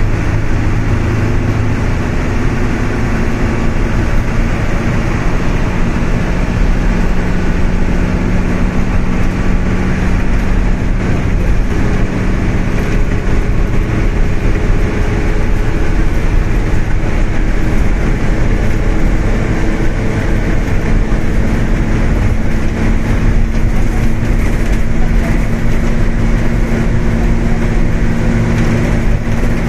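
Steady engine and road noise heard from inside a vehicle driving at speed, with a low engine hum that shifts in pitch partway through.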